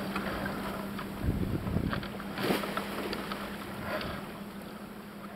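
Wind on the microphone and water rushing along the hull of a Farr 30 racing keelboat sailing downwind, with a low steady hum underneath. A few knocks and thuds on the boat come around one and a half and two and a half seconds in.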